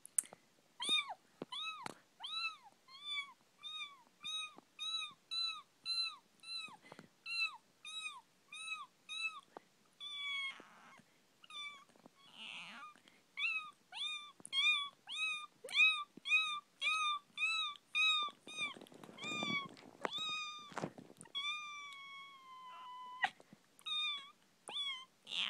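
A woman imitating a baby kitten with her voice: a long series of short, high-pitched mews, about two a second, each rising then falling in pitch. A few breathy breaks come between runs, and a longer drawn-out mew near the end drops in pitch as it stops.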